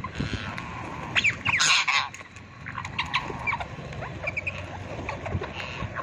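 A flock of rose-ringed parakeets calling: short shrill chirps, with one loud harsh screech about two seconds in and quick runs of brief chirps later on.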